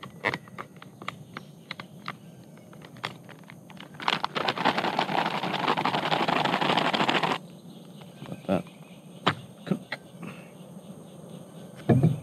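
Water being poured for about three seconds in the middle, among light clicks and knocks of camp cookware being handled.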